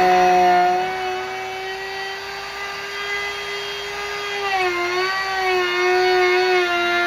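Electric router cutting a juice groove into a wooden cutting board: a steady high motor whine that sags in pitch about four and a half seconds in as the bit loads up in the wood, then recovers.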